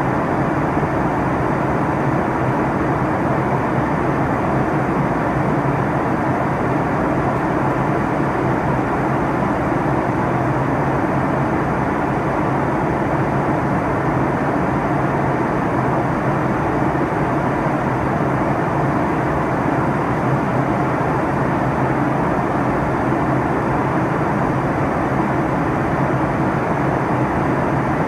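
Steady, even drone of a jet airliner cabin in flight: engine and airflow noise that does not change.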